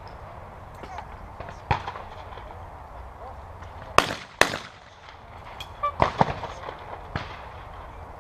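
Shotgun shots on a trap range: sharp single cracks, the loudest a pair about four seconds in, half a second apart, with fainter shots before and after.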